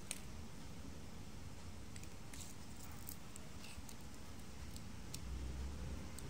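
Faint scattered ticks and rustles of stiff sugar palm fibres being handled between fingers, with a low handling rumble near the end.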